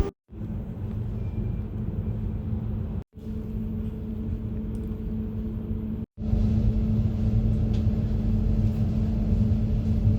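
Steady low rumble of a moving vehicle with a steady hum, in three short stretches split by two abrupt cuts.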